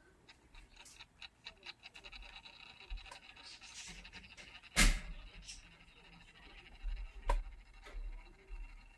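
Small motorised display turntable turning, with a string of light ticks, about five a second. A sharp, louder noise comes about five seconds in, and a smaller one a couple of seconds later.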